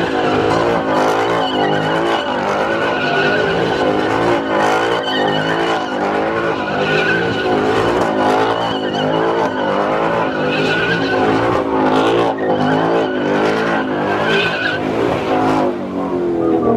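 A car doing a burnout: its tires squeal steadily over a loud engine revving up and down.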